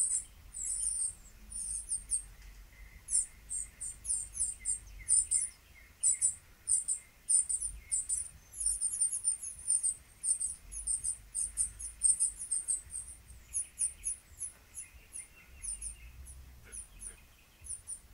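Small birds chirping from a tablet's small speaker: many short, very high chirps in quick runs with brief pauses.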